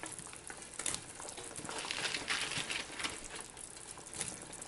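Curry gravy boiling in a frying pan, a steady bubbling crackle, with light plops as fried pakoras are dropped into it.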